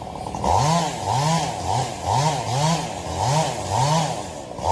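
Chainsaw engine revved up and down over and over, its pitch climbing and dropping just under twice a second.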